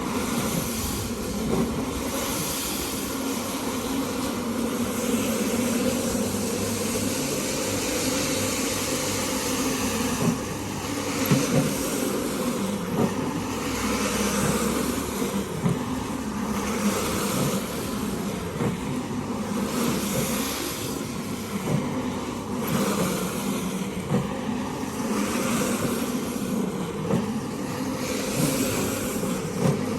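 Rug-cleaning machine running steadily, with a hiss that swells and fades every second or two as it is worked back and forth over a muddy mat.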